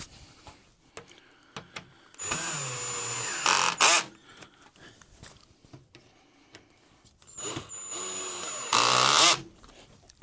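Ryobi 18V cordless drill with a hex-head bit driving crib bolts snug, in two runs of about two seconds each. Each run speeds up and ends in a short, louder burst. Small clicks and knocks of handling come between the runs.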